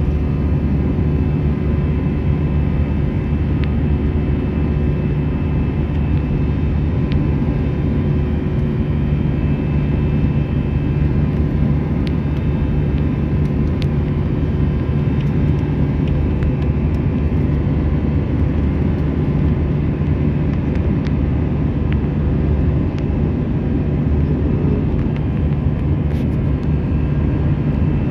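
Steady jet engine and airflow noise heard inside an Airbus A320's passenger cabin while the airliner climbs after takeoff: an even, unbroken drone with a strong low hum and a few faint steady tones above it.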